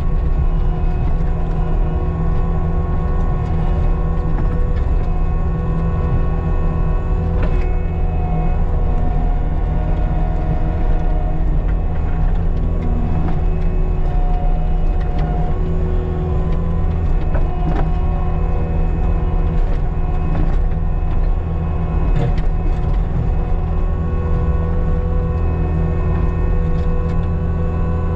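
Caterpillar 299D2 compact track loader's diesel engine running steadily at working speed, with a steady whine above the rumble and a few knocks.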